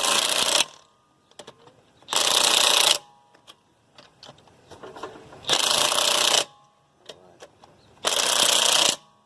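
Impact wrench on its second power setting hammering lug nuts tight on a wheel, in four short bursts of under a second each, a couple of seconds apart.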